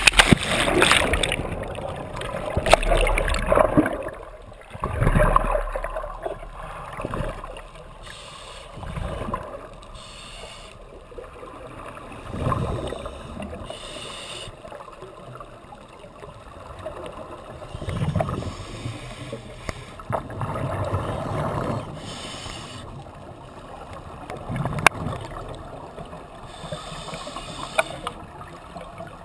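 A scuba diver's backward-roll entry off a boat, with a rush of water over the first few seconds. Then, underwater, the diver's regulator exhaust bubbles in surges every few seconds as they breathe out during the descent.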